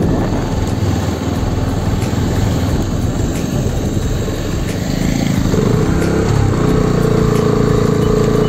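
Bajaj Pulsar NS 125's single-cylinder engine running on the move under wind and road rush. About halfway through, as the bike slows from about 28 to 18 km/h, the rush eases and a steady engine hum comes forward.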